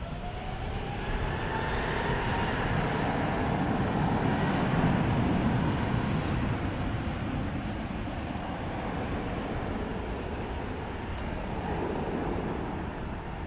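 Airbus A350's Rolls-Royce Trent XWB jet engines as the airliner rolls along the runway. A whine rises in pitch at the start, and the engine noise swells to its loudest about five seconds in, then eases.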